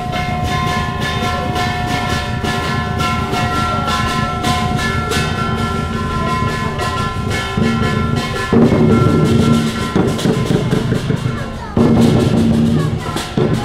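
Chinese lion dance percussion: a large drum beaten in rapid rolls with crashing, ringing cymbals, the drumming growing heavier about two-thirds of the way through.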